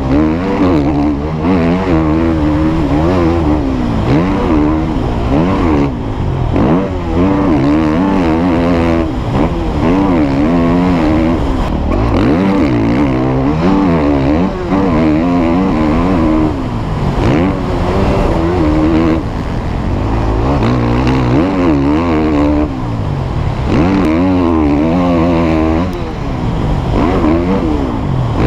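Husqvarna 450 four-stroke single-cylinder motocross bike ridden hard, its revs rising and falling over and over, with a few brief drops off the throttle.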